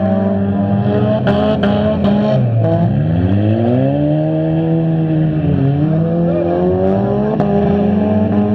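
Engines of several stock front-wheel-drive cars revving up and down and overlapping as they race and bump around a dirt track. A few sharp knocks and clatters sound over them, about a second in and again near the end.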